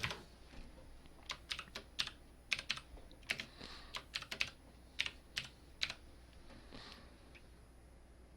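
Typing on a computer keyboard: a run of about fifteen quick keystrokes over some four seconds, entering a new name for a disk icon, then the keys stop.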